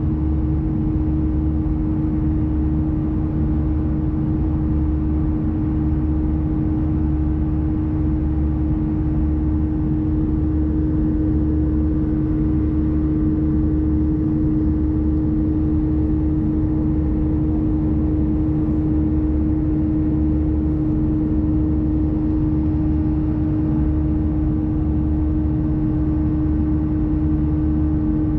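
Cabin noise of an Airbus A320-214 in the climb: the steady rumble of engines and airflow, with a howl from the left side holding one unchanging tone throughout.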